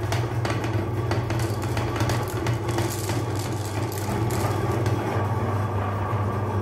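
Electric meat grinder's motor running with a steady low hum, with irregular clicking and rattling as it grinds small hard candy balls.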